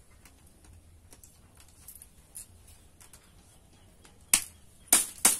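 Thin bamboo strips clicking faintly as they are worked into a woven hexagonal chicken mat, then three loud, sharp snaps in the last second and a half.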